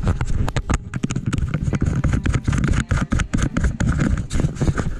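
Irregular taps and knocks on a GoPro camera's housing, over a low rumble.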